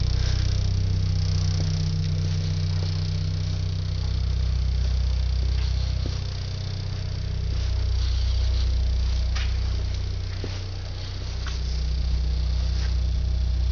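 Volkswagen Passat 1.8T four-cylinder turbo engine idling with a deep, steady drone that dips and swells a little a couple of times. A few brief rattles sound above it, the drone making window glass rattle.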